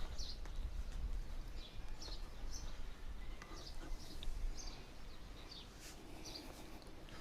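A small bird chirping repeatedly, short high calls about once or twice a second, over a low rumble that fades after the first couple of seconds. A few faint clicks are heard too.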